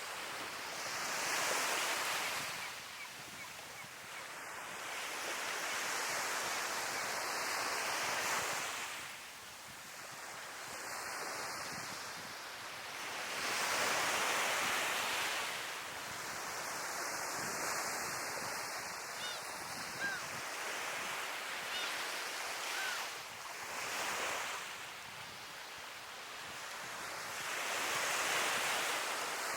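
Sea waves breaking and washing on the shore in slow swells, about five times, with a steady hiss of surf in between.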